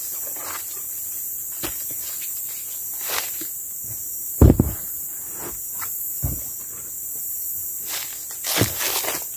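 Dead wooden logs being set down on one another, a heavy thud about halfway through and a few more knocks near the end, with footsteps on dry leaf litter. Insects drone steadily in the background.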